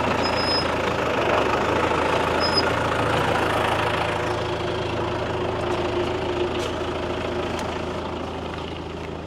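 John Deere 5520 tractor's four-cylinder diesel engine idling steadily while the tractor stands still, gradually getting quieter toward the end.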